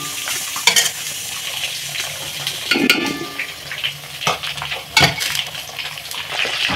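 Hot water splashing and pouring as half-boiled rice is tipped into a metal cooking pot, with a few sharp knocks of utensils against the pot.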